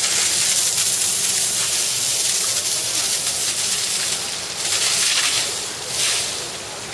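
Water spray hissing and spattering onto an Asian elephant's wet back. Steady, then swelling and easing a couple of times in the last few seconds.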